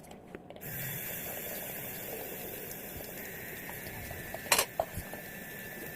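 Water running steadily, starting abruptly about half a second in, with a sharp click a few seconds later.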